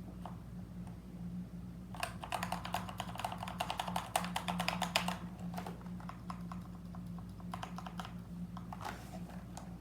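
Keys of a K66 mechanical gaming keyboard clacking under fast typing for about three seconds, then slower, scattered keystrokes, over a steady low hum.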